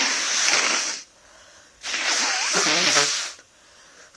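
Hard, wet sneezes from a person with a bad head cold: one ending about a second in, then another about two seconds in. Each is a loud rush of air lasting over a second, and the second ends in a wavering voiced cry.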